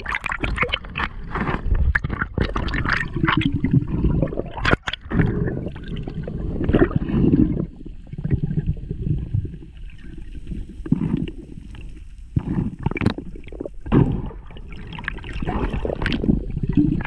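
Underwater water movement heard through a diver's camera housing: uneven gurgling and bubbling surges with short knocks.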